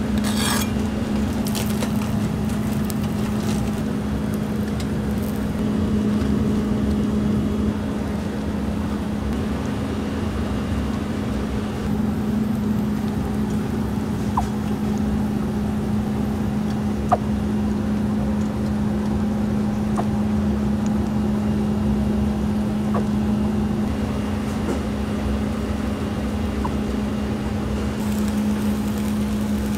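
Steady mechanical hum of griddle-stall kitchen equipment, a constant low tone over a rumble. There are a few light clinks about a second in and scattered faint ticks later, one sharper tick about halfway.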